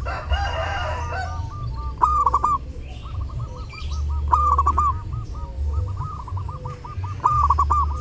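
Zebra dove cooing: running strings of quick soft notes, broken three times by a louder burst of notes, about every two and a half seconds. A different, denser bird call sounds in the first second.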